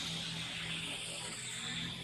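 Steady, high-pitched drone of insects in the trees, easing off near the end, over a faint low steady hum.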